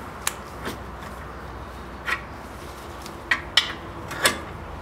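Socket wrench on a 14 mm socket and extension working the screw of a bushing extractor on a rear trailing arm, pressing out the worn rubber bushing: about six separate sharp metallic clicks and knocks, two of them close together past the middle.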